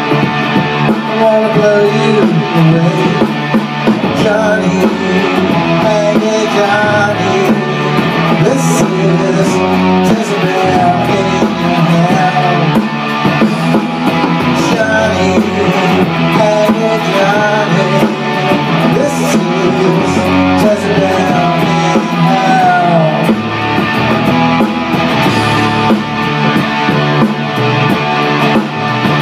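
Electric rock music: a Les Paul-style electric guitar plays an instrumental passage with bent, wavering notes over programmed bass and drums from a DigiTech Trio accompaniment pedal, with no vocals.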